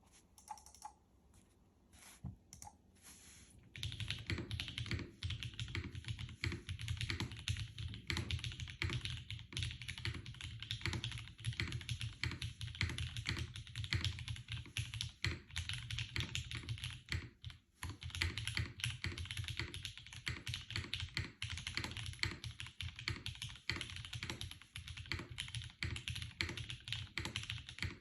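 Typing on a Geon F2 mechanical keyboard with an aluminium half plate and SP-Star DMG switches: a few separate keystrokes, then fast continuous typing from about four seconds in.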